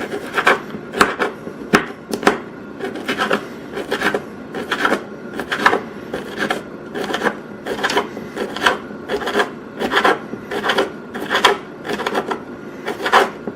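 Knife slicing a pepperoni stick into thin slices on a cutting board: a steady run of short knocks as the blade meets the board, about two to three cuts a second.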